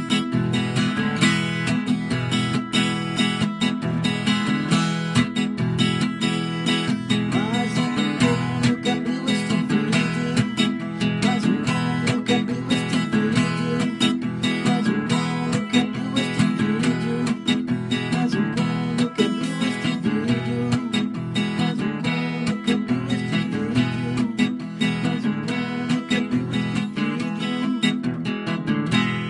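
Acoustic guitar strummed in a steady rhythm, playing an instrumental passage of a song.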